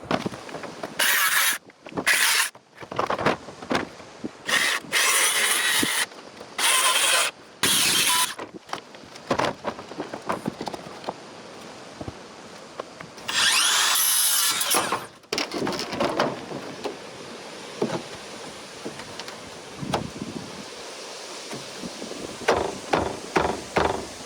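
A power tool run in short bursts of about a second each, with a longer run of about two seconds midway, during wall repair work; a few light knocks near the end.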